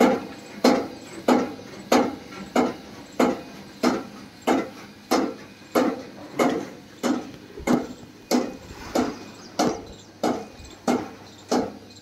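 Silage baler machine running, with a sharp, regular knock repeating about every two-thirds of a second.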